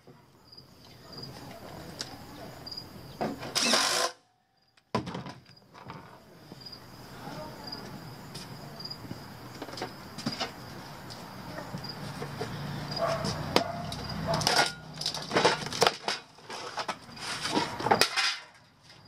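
Sheet-metal furnace parts being handled, with sharp metallic clattering as pieces are picked up and set down, heaviest in the last few seconds. Under it run a low steady hum and a faint regular high chirp.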